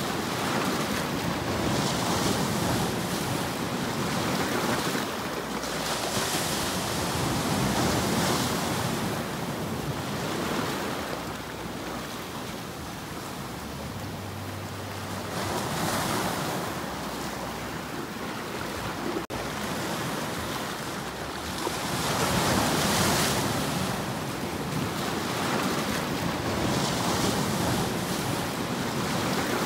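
Sea waves breaking and washing over shoreline rocks: a steady rush of surf that swells and ebbs every few seconds.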